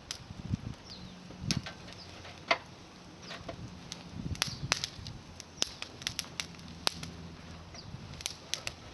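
Small bonfire of climbing-rose twigs crackling: irregular sharp pops and snaps, the loudest about two and a half seconds in, over a faint low hum.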